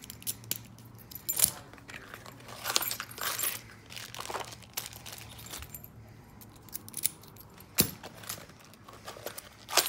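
Brass lock cylinders and their keys jangling and clinking as they are picked up and sorted by hand on a glass counter, in irregular handfuls with a few sharper clicks.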